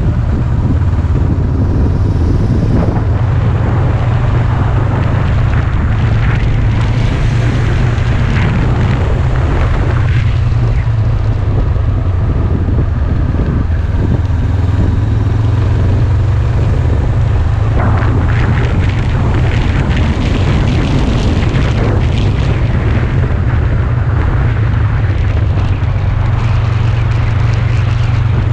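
Sport motorcycle riding at speed: a steady, heavy low rumble of wind buffeting the microphone over the running engine.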